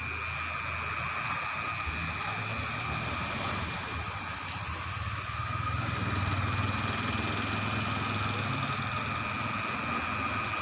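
Steady mechanical hum: a constant high whine over a low rumble that grows louder about halfway through.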